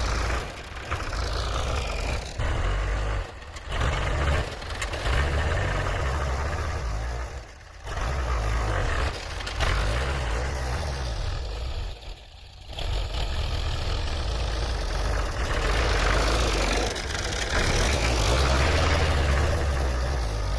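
Farm tractor engine running steadily, with a few brief dips in level.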